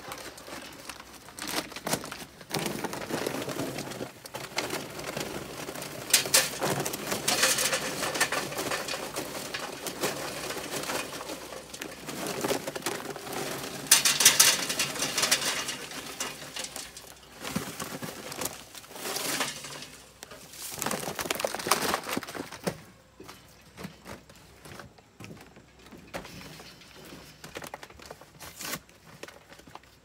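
Charcoal briquettes poured from a paper bag into metal chimney starters: the briquettes rattle into the metal and the bag rustles, in several loud surges over about twenty seconds, easing to scattered ticks near the end.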